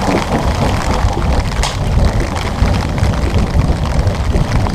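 Wind buffeting the microphone: a loud, steady low rumble. One short sharp sound cuts through it about a second and a half in.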